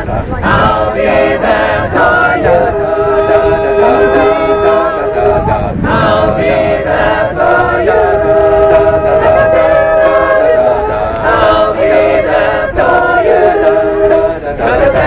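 Mixed a cappella choir singing sustained harmonies, the chords changing every few seconds, with wind rumbling on the microphone underneath.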